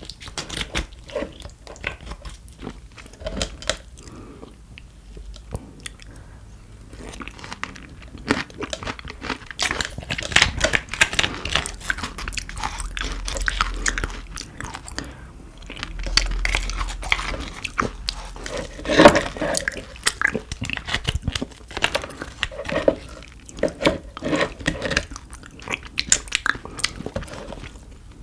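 Close-miked eating sounds: a person biting and chewing food, many quick irregular mouth clicks, with one louder bite about two-thirds of the way through.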